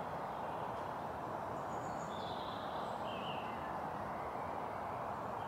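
Steady outdoor background noise with a few faint bird calls about two to three seconds in.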